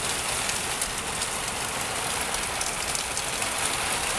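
Heavy rain hammering down steadily, an even hiss of downpour with scattered sharper drop hits.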